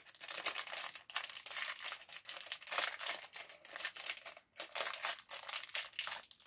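Thin pink plastic wrapper of a small LOL Surprise accessory bag crinkling and crackling in quick, irregular bursts as fingers pick it open.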